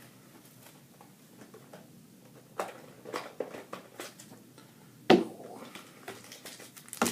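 Handling of a sealed sports-card box and its packaging: scattered light taps and clicks, with one sharper knock about five seconds in and another near the end.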